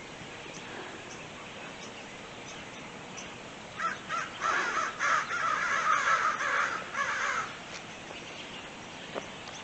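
A large flock of American crows cawing together, many overlapping caws starting about four seconds in and lasting about four seconds.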